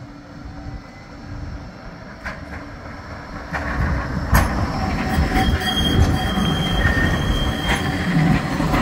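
Bombardier Flexity 2 tram approaching and passing close by on street track, growing steadily louder over the first four seconds into a low running rumble. The wheels knock sharply over the track about five times. A thin, steady, high squeal sounds from about five to eight seconds in.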